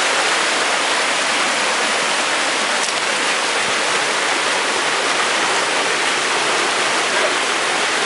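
Shallow creek water rushing and splashing over rocks, a loud, steady rush.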